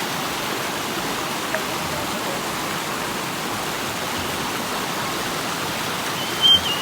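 River water rushing steadily, with a brief high-pitched cry near the end.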